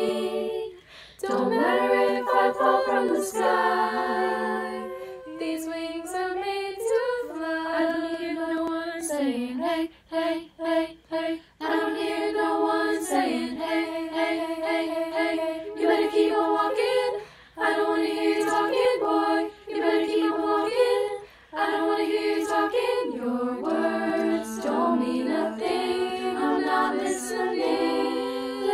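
Female a cappella choir singing in close harmony without instruments. A run of short, clipped notes comes about ten seconds in, and brief breaks fall between phrases.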